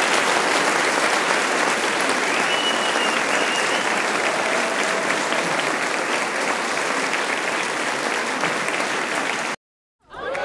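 Crowd applauding, a steady dense clatter of clapping that cuts off abruptly near the end.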